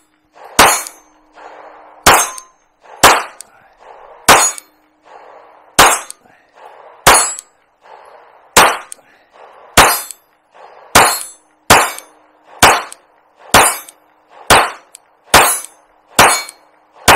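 Pistol firing about sixteen shots in a steady string, roughly one a second at first and quickening toward the end, each shot followed by a short echo.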